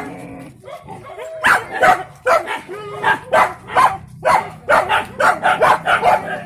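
Hunting dog barking over and over, about two barks a second, excited at a tethered wild boar piglet; the first second or so is quieter before the barking starts.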